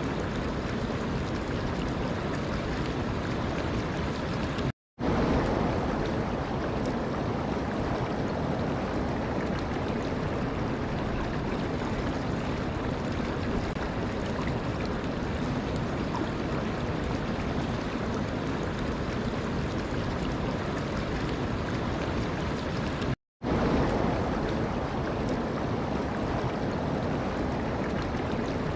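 Steady rushing water, an even wash of noise. It cuts out completely for a split second twice, once about five seconds in and again about 23 seconds in, then comes back slightly louder: seams where the recording is looped or spliced.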